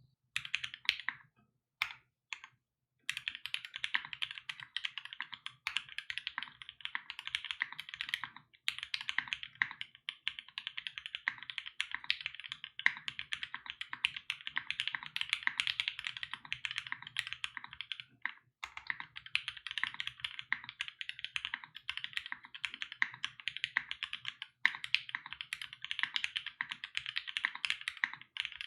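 Continuous fast typing on a custom 60% mechanical keyboard with lubed 8008 Inks linear switches on an aluminum plate and PBT keycaps: dense keystroke clacks with a soft low thud under them. A few separate keystrokes open it before the typing runs steadily, with short breaks about a third and two-thirds of the way through.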